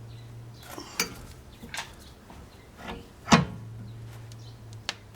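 Hand tools and washers on a wheel stud and lug nut making a few sharp, separate metal clinks, the loudest a little past three seconds in, over a low steady hum.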